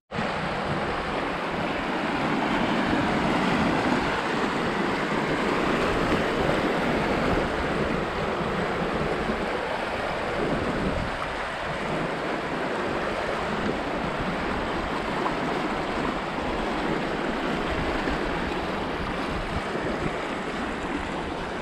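River rapids: whitewater rushing steadily over rock ledges close by.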